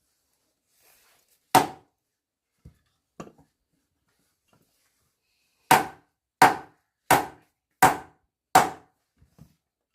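Sharp blows of a tool striking wood: a single blow about a second and a half in, two light taps a little later, then a run of five strong, evenly paced blows about two-thirds of a second apart.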